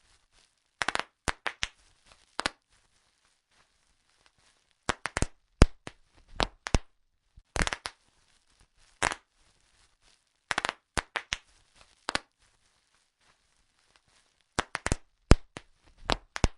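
Bubble wrap being popped: sharp pops at irregular intervals, some single and some in quick runs of two to four, with silent gaps between.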